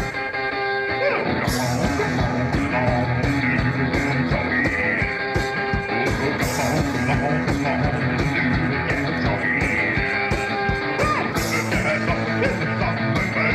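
Rock-and-roll song played one-man-band style: electric guitar over a steady bass drum beat, with a cymbal crash about every five seconds.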